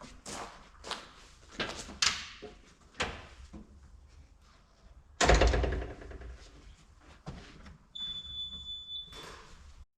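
Knocks and thuds of sawn boards and slabs being picked up and tossed onto a pile during cleanup at the sawmill, with one much louder wooden thud about five seconds in. Near the end comes a brief high squeal.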